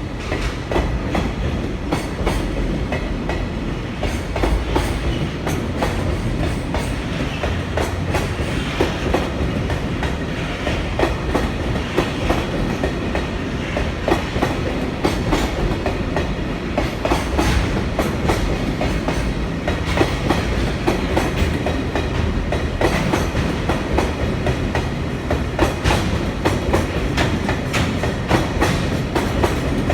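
A freight train's wagons rolling past close by, the wheels clacking over rail joints again and again under a steady rumble.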